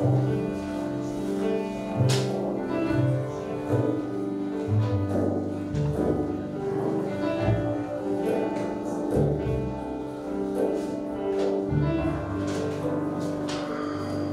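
A jazz quartet playing live: saxophone holding long notes over double bass and grand piano, with frame drum and sharp cymbal strokes, the clearest about two seconds in and again near the end.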